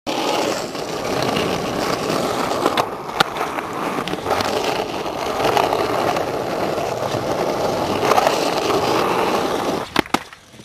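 Skateboard wheels rolling over rough concrete, a steady gritty rumble, which breaks off near the end into a few sharp clacks of the board striking the concrete as the trick is done.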